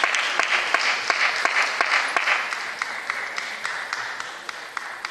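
Applause, many sharp claps, fading away over the second half.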